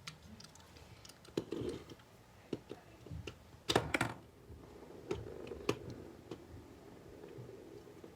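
Small plastic clicks and taps as a McDonald's Beyblade toy, Sprizon Requiem, is loaded into its push launcher, with a louder clatter of clicks about four seconds in as it is pushed out. A faint steady whir of the top spinning follows and fades.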